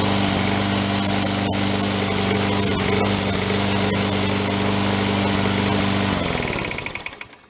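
Sears Craftsman 22-inch walk-behind lawn mower's Briggs & Stratton 650 Series engine running steadily, then shut off about six seconds in, its note falling as it coasts to a stop.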